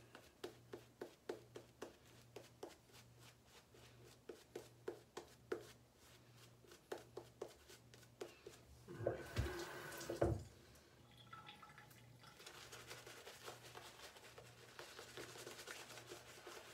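Shaving brush working wet lather over the face, soft swishing strokes about three a second. About nine seconds in there is a louder rustle with two low knocks, followed by a faint steady hiss.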